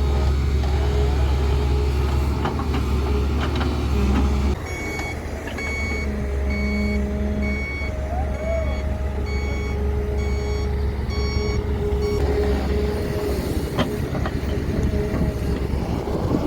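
Diesel engines of an excavator and dump truck running, with a heavy vehicle's reversing alarm beeping about once a second from about four seconds in until about twelve seconds in.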